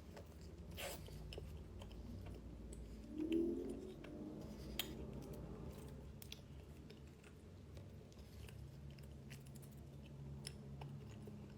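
A person chewing a soft, creamy mango pastry close to the microphone, with small wet mouth clicks scattered through. A little over three seconds in there is a short hummed "mm".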